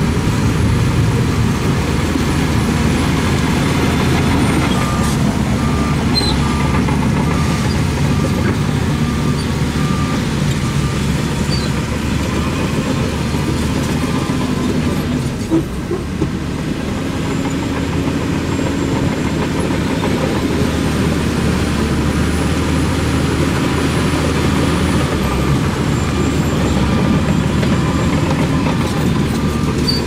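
Heavy diesel earthmoving machinery running steadily under load. For several seconds in the first half, a reversing alarm beeps about once a second.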